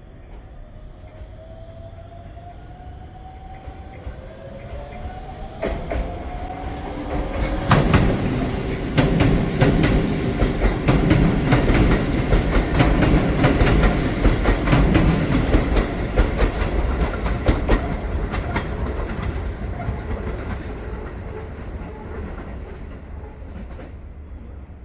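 Shibayama Railway 3600 series electric train passing: a rising whine as it approaches, then a loud, rapid clatter of wheels over rail joints for about ten seconds, fading as it moves away.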